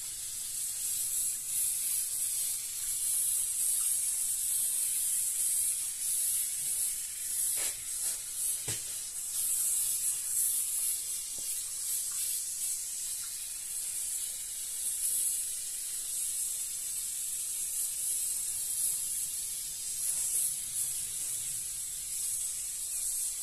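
Aerosol adhesive foam hissing steadily out of a foam gun as a bead is laid along plasterboard, with a couple of short clicks a little after seven and eight seconds in. The gun won't stop spraying: something is wrong with it, which the user puts down to it needing a clean.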